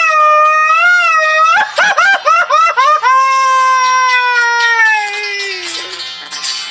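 A man's Mexican grito: a long, high yell that wavers in pitch, breaking about a second and a half in into a run of rapid, stuttering yips, then a long held cry that slides slowly downward and fades out around six seconds in.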